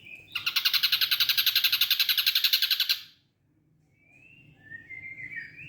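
Ashy drongo calling: a loud, fast, harsh rattling series of about thirteen notes a second lasting nearly three seconds. After a short pause come softer whistled notes that glide up and down.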